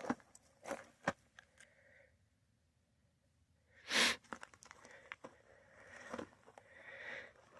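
Footsteps crunching on dry, gravelly ground, stopping briefly, with one louder crunch about four seconds in.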